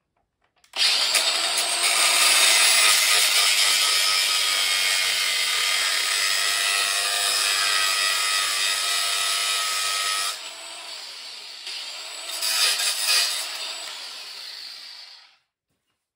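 Small cordless cut-off tool's abrasive wheel grinding through a steel screw: a loud, steady high whine mixed with grinding hiss. About ten seconds in it drops much quieter, swells briefly, then stops a few seconds later.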